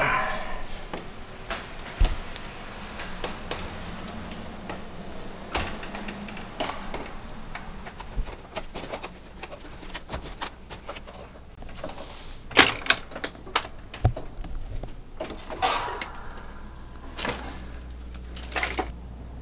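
Irregular knocks, clatters and creaks of a person climbing a ladder up into an attic, with the camera bumping and rubbing as it is handled. The loudest is a quick run of sharp knocks about two-thirds of the way through.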